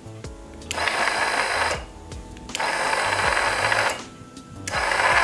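12 V electric scissor jack's motor and gear drive lowering the jack in stretches of about a second. It cuts out three times for under a second each as the safety limit switch is pressed, then starts again.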